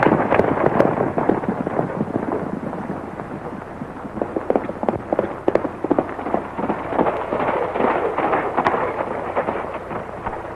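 Galloping horse hooves: a fast, irregular clatter of hoofbeats over the steady hiss of an old film soundtrack. The clatter is densest at the start, eases a few seconds in, then picks up again.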